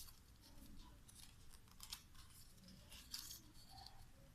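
Faint rustling and crinkling of chart paper being folded and pressed into creases by hand, in a few short rustles.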